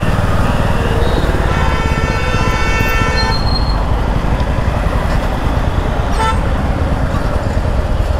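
A vehicle horn blows for about two seconds, then gives a short second toot about six seconds in, over a steady rumble of engine and road noise in traffic.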